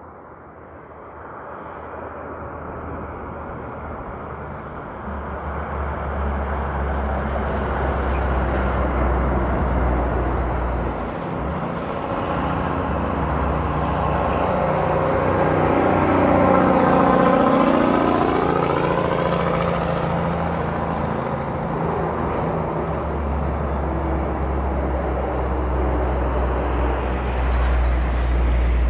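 Heavy trucks driving past on a highway: a low engine drone and tyre noise build up, one vehicle passes close about halfway through where it is loudest, and another strong engine drone comes in over the last few seconds.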